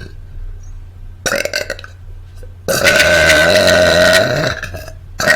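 A person burping: one long, loud burp lasting nearly two seconds, about three seconds in, with briefer sounds before and after it.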